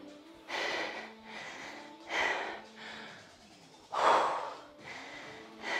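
A woman breathing hard after an intense set of dumbbell exercise: four heavy breaths, about one every second and a half to two seconds, the third the loudest.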